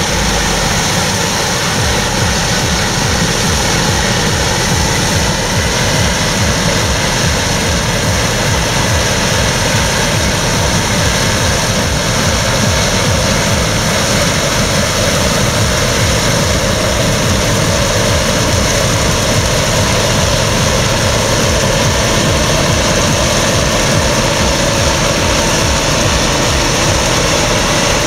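Claas Lexion combine harvester working under load as it cuts and threshes rapeseed: a loud, steady drone of diesel engine and threshing machinery with a fast low pulse underneath.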